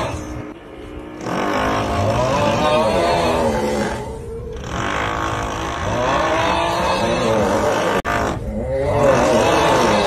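A drawn-out, wavering 'uuuugh' snoring groan, the meme sound effect, repeated with short breaks, over the steady sound of a drill underneath.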